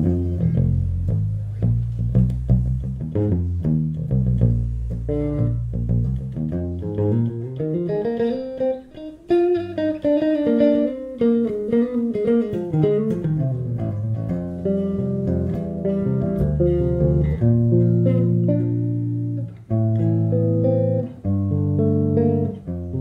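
Six-string electric bass (FL Custom Master Custom 003, 35-inch scale) played solo. Low notes first, then a quick run climbing into the high register about eight seconds in and descending again, followed by held chords.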